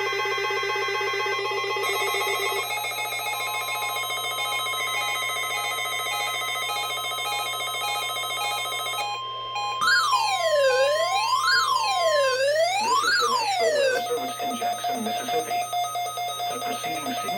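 Weather radio receivers sounding their alert alarms, set off by a weekly test: rapid electronic beeping in several pitches with a steady warning alarm tone under it. About ten seconds in, a siren-like tone sweeps up and down for about four seconds, then the beeping carries on.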